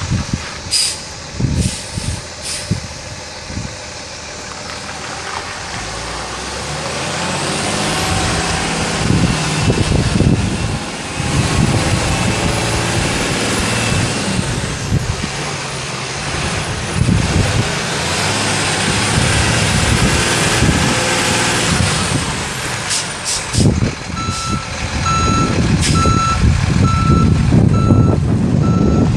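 Truck diesel engine, a Cummins ISC 8.3-litre turbo six, running and revving up and down with a high turbo whistle that rises, holds and falls away. Near the end a reversing alarm beeps steadily, about once a second.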